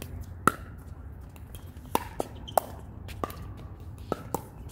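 Pickleball rally: paddles striking the hollow plastic ball and the ball bouncing on the hard court, a series of sharp pocks, about seven clear ones, with the loudest about half a second in. Fainter pocks come from play on the neighbouring court.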